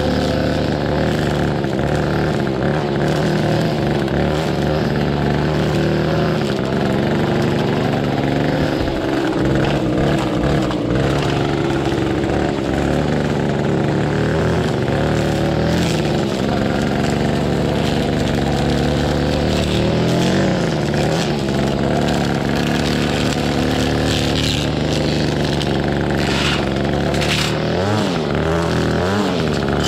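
Echo SRM-225 string trimmer's small two-stroke engine running at cutting speed as the line cuts grass. The engine pitch dips and climbs a few times near the end as the throttle is eased and opened again.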